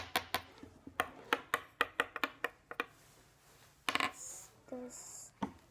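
Quick, irregular clicking and tapping of small hard objects handled by hand, followed by a short scratchy rustle about four seconds in.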